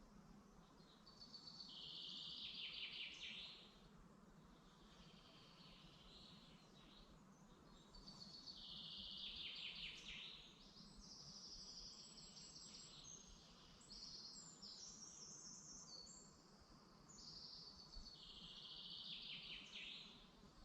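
Wild songbirds singing in forest. One bird repeats a song phrase of about two and a half seconds three times, each ending in a downward sweep, with shorter, higher calls from other birds in between. A faint steady background noise runs underneath.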